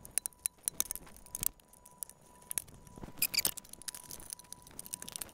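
Irregular small metallic clicks and scrapes of a screwdriver and a button bolt on a 1 mm steel guard panel, as the bolt fails to take in its hole, which the builder suspects needed threading first.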